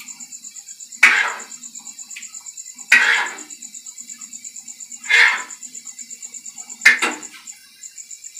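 Metal spoon scraping and stirring food in a frying pan, four strokes about two seconds apart, each the loudest sound. Under it a cricket chirps steadily, a fast pulsing high chirp.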